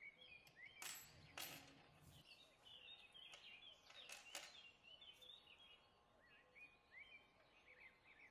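Faint chirping of small birds throughout, with four light taps of small model-car parts set down on a wooden tabletop, two about a second in and two about four seconds in.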